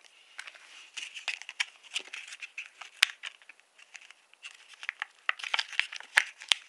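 Stiff clear plastic blister packaging crinkling and crackling as it is handled and pulled apart by hand: a run of small clicks and crackles with one sharp snap about halfway through, getting busier near the end.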